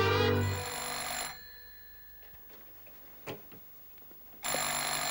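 Bell of a rotary-dial desk telephone ringing twice, each ring about a second long and about four seconds apart, after string music breaks off at the start.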